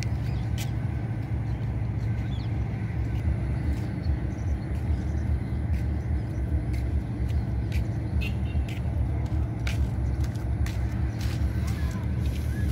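A steady low rumble underneath, with scattered light splashes, drips and clicks as a wet fishing net is hauled by hand out of the river into a wooden boat.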